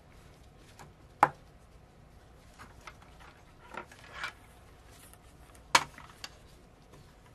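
A laptop hard drive and a plastic drive enclosure being handled and set down on a tabletop: two sharp knocks, about a second in and near the end, with softer clicks and rustling between.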